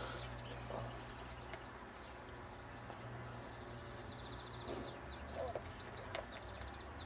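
Faint outdoor ambience with birds singing, including a quick high trill midway through, over a low steady hum.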